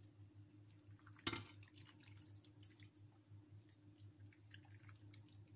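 Water poured from a glass into a pan of fish and tomatoes, a faint trickle and dripping, with one light knock about a second in. A steady low hum runs underneath.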